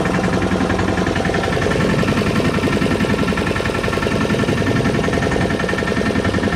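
Fishing boat's engine running steadily at low revs, with a fast even pulsing drone.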